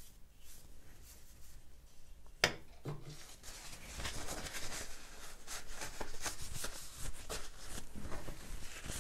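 A single sharp tap about two and a half seconds in, as a paintbrush is set down across the metal paint tin, then crinkly rustling of a paper towel as hands are wiped clean of paint.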